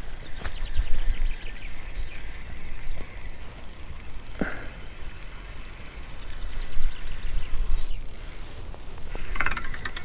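Spinning fishing reel clicking rapidly as it is wound in, bringing a hooked chub to the bank.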